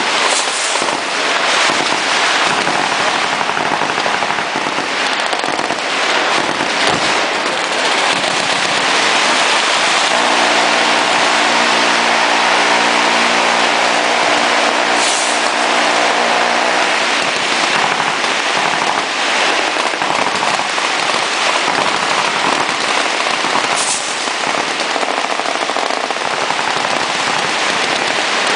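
Continuous rapid gunfire from many automatic weapons firing at once, a dense unbroken crackle of shots. A steady low tone sounds underneath for several seconds in the middle.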